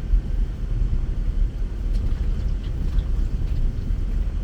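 Land Rover Discovery driving along a rough off-road track: a steady low rumble of engine and running gear.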